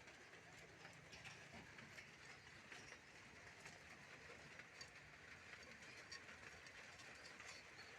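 Near silence: a faint steady hiss with scattered faint clicks.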